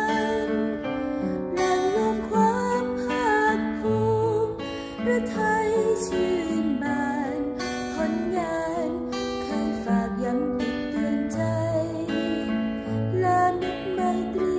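A woman singing a slow Thai song, accompanied by an acoustic guitar played with a steady strum.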